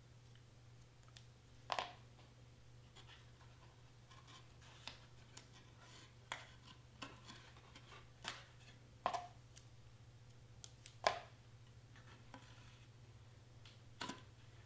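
Irregular light clicks, taps and rustles of cardstock and metal tweezers being handled on a cutting mat while a paper tab is pressed into place, over a faint steady low hum.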